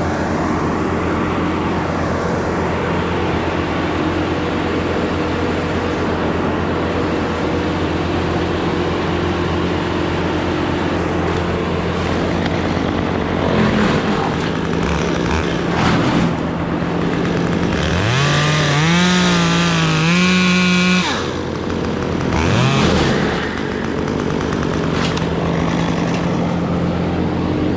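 Chainsaw, likely a Stihl, blipped on the throttle a few times, then revved to full speed for about three seconds, over a steady engine drone.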